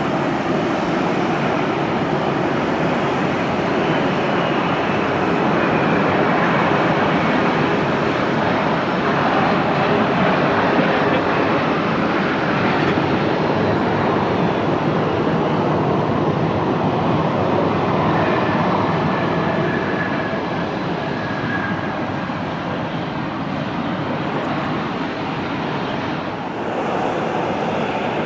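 Bombardier CRJ regional jet landing: loud, steady rushing roar of its turbofan engines and airflow, with a faint falling whine in the middle. Near the end the sound cuts to another jet's engines.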